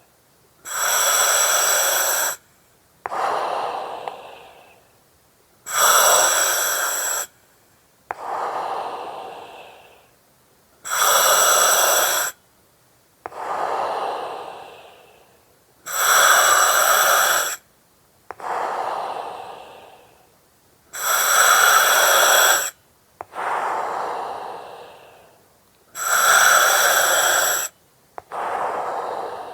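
Breathing through an oxygen mask, regular and slow, about one breath every five seconds, six times. Each breath has a steady hiss with a whistling edge from the mask's oxygen regulator, lasting about a second and a half, followed by a softer breath of air through the mask that fades out.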